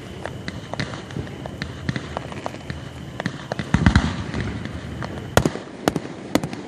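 Aerial fireworks display: a constant crackle of small reports, a deep boom about four seconds in, then three or four sharp loud bangs near the end as shells burst.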